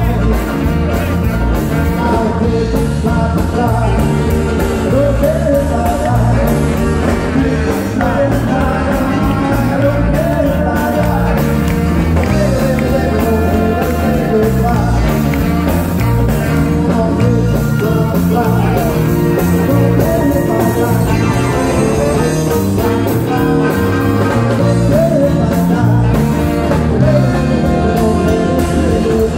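Live rock and roll band playing: electric guitars, saxophone, keyboard and drum kit, with a male lead vocal.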